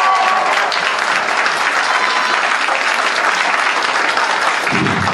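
Crowd of spectators in a small hall applauding steadily.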